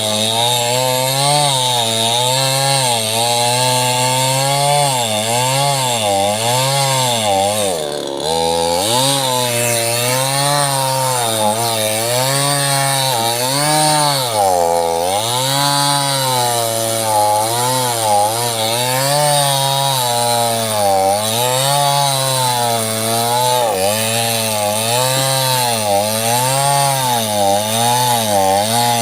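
Small two-stroke chainsaw cutting into sengon wood, running loud and continuous, its engine pitch wavering up and down about once a second as the chain bites and frees. It bogs down briefly about eight seconds in and again around fifteen seconds, then picks back up.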